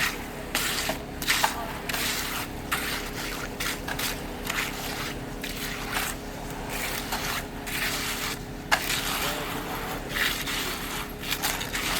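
Wet concrete being worked by hand: repeated irregular scrapes and swishes of tools pushing and dragging through the mix, with a steady engine hum underneath.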